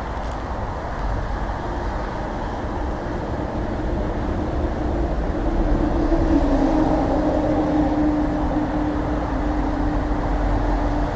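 Motorway traffic passing below, a steady rushing rumble, with a humming tone that grows louder about halfway through and drops slightly in pitch.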